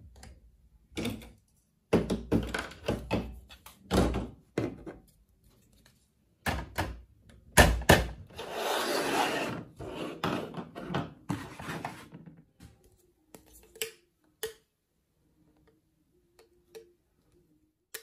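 Hard plastic toy playset pieces being handled and set down on a table: a run of clunks and knocks, the sharpest about two-thirds of the way through the busy part, then a rubbing scrape lasting a few seconds, before it tails off into a few light ticks.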